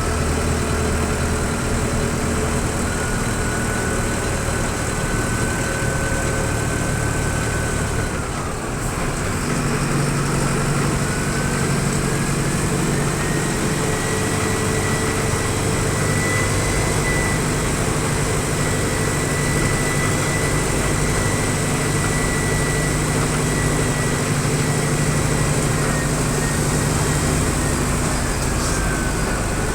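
Mercedes-Benz OF-1722M bus diesel engine running, with a high whistle over it. The whistle falls away about eight seconds in as the engine note changes, climbs back and holds steady, then dips again near the end.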